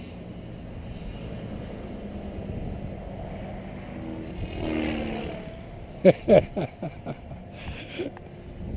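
Distant radio-controlled model helicopter flying overhead: a steady hum that swells briefly about four to five seconds in. Two short, loud sounds come just after six seconds.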